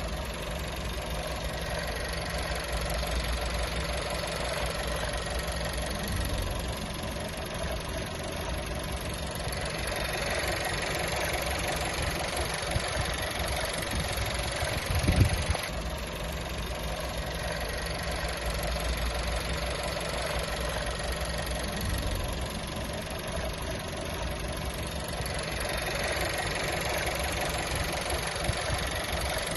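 A 2018 VW Touran's 1.4 TSI turbocharged four-cylinder petrol engine idling steadily, with one short thump about halfway through.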